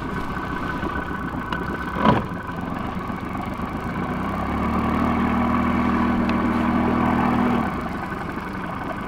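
Boat outboard motor idling, running a little louder and steadier for a few seconds in the middle before dropping back. A short knock about two seconds in.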